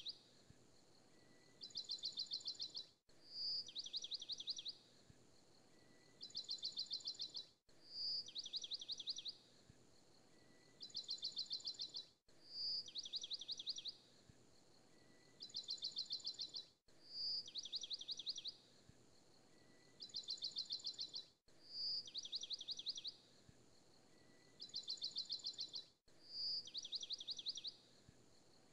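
Looped recording of a bird's high trilled chirps: a single short high note, then two rapid trills. The same pattern repeats exactly about every four and a half seconds.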